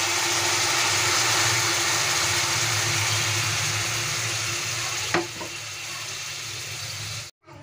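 Hot water poured into a kadai of teasel gourd and potato frying in hot oil, with a steady sizzle and bubbling as the water hits the oil. A short knock comes about five seconds in, after which the sizzle is quieter.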